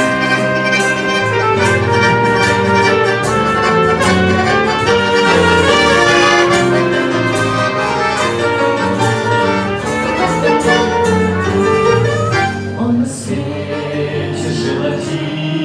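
Instrumental music: the introduction to a song, with several instruments playing a melody.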